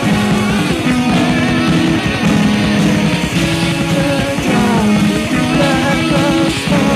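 Rock music, a band playing an instrumental passage: a guitar line over held bass notes that change about once a second.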